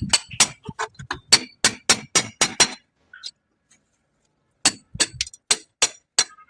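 Repeated sharp hammer strikes with a clinking ring, about four a second, stopping for about a second and a half midway before resuming.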